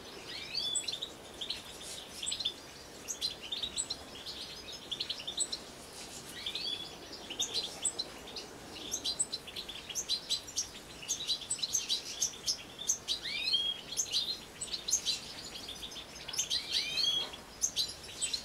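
A flock of European goldfinches twittering, with many short, high chirps and curling call notes overlapping without a break.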